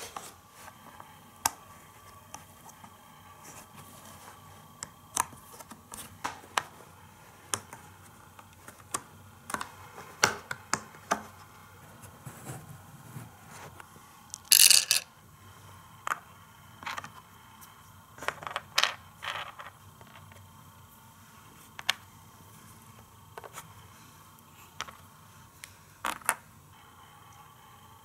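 Hard plastic Hot Wheels Road Construction Playtrack pieces and accessories being fitted together and set down: scattered clicks and taps, with a louder half-second rattle about halfway through.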